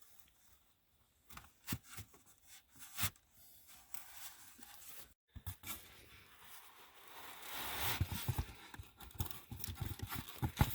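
Ratchet strap being handled and tightened: scattered clicks and rustling of the strap webbing, then a denser run of quick clicking from about eight seconds in.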